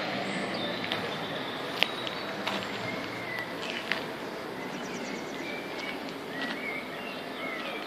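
Outdoor ambience: birds chirping now and then over a steady hiss, with a couple of sharp clicks about two and four seconds in.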